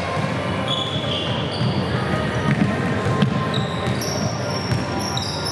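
Basketball game in a gym: a steady murmur of crowd and player voices, with sneakers squeaking on the court several times and a few ball bounces.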